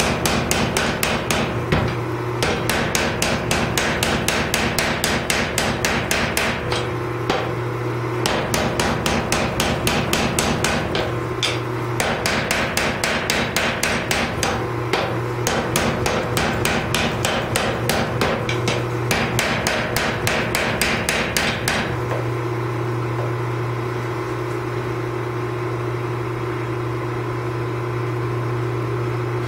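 Power hammer pounding a glowing Damascus steel billet in rapid blows, several a second, with a few brief pauses. The blows stop about three quarters of the way in, and the machine's steady hum carries on.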